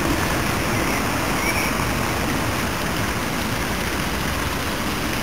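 Steady, even rain hiss on a wet paved square, with no separate events.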